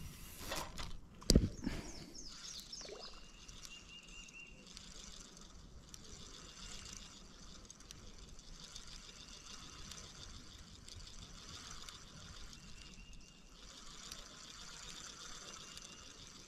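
Quiet outdoor ambience: two short knocks within the first second and a half, then a steady faint high hiss with a brief high whistle twice, about three seconds in and near the end.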